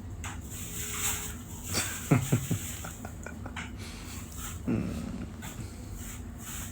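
Loud snoring from a sleeper: a quick run of three short snorts about two seconds in, and another a few seconds later.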